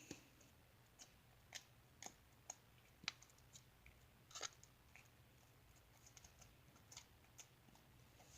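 Faint, irregular clicks and small crunches of slime with Lego pieces in it being squeezed and worked in the hands.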